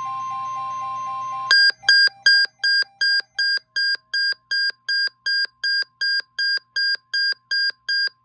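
Emergency alert attention signal from a broadcast: a steady single-pitched tone for about a second and a half, then a fast run of short, high electronic beeps, about three a second.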